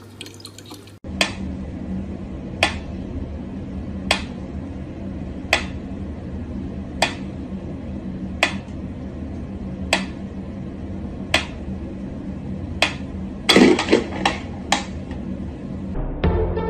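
Mechanical pyramid metronome ticking slowly and evenly, about one click every second and a half, followed about thirteen seconds in by a quick cluster of louder clicks and knocks.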